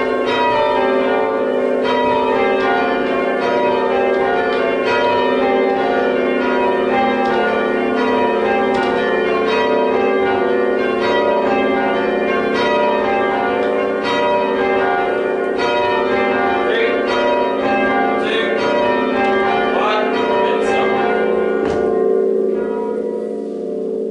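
A ring of church tower bells rung full circle in English change ringing: a steady, rapid succession of overlapping strokes over the bells' lingering hum. The striking thins out near the end.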